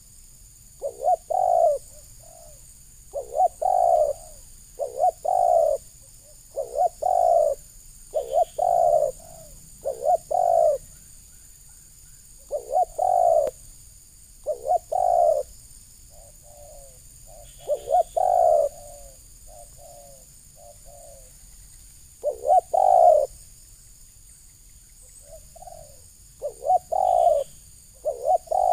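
Spotted dove cooing: short, low, repeated coo phrases every second or two, with a few longer pauses and some softer notes between them.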